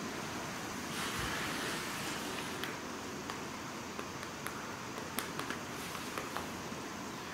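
Steady quiet hiss with faint rustling as a pony moves about on wood-shavings bedding, and a scatter of small clicks and taps in the middle.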